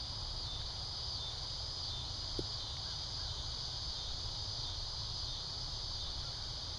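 Insects chirring steadily in a high, slightly pulsing drone over a low rumble, with one faint click about two and a half seconds in.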